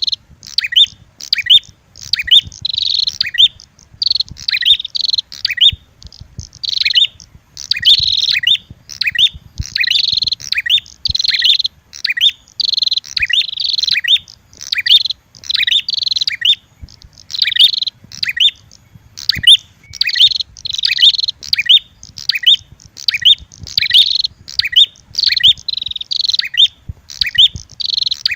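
Bird-lure recording of prenjak (prinia) calls, a red-headed prenjak mixed with a female prenjak's fighting calls: rapid, high, sharp chirps in short bursts about once a second, without a break.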